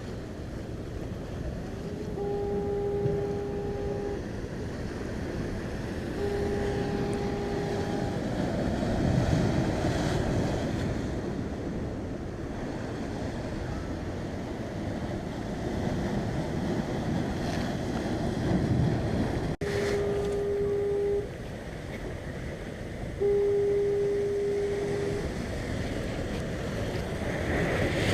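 Ocean surf and wind buffeting the microphone, while a foghorn sounds four long, steady, low blasts in two pairs, each blast lasting about two seconds.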